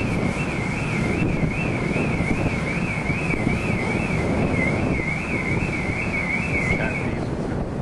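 Wind buffeting the microphone over a low rumble aboard a moving ferry. Above it a high warbling tone wavers up and down about two and a half times a second, then stops about seven seconds in.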